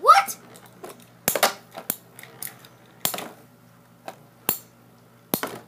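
Two metal-wheeled Beyblade spinning tops clashing as they spin in a plastic stadium: sharp metallic clacks at irregular intervals, about five louder hits with fainter ticks between.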